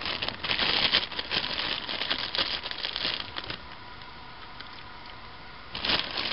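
Thin plastic bag crinkling and rustling as it is handled, in two spells: for the first three and a half seconds, then again near the end.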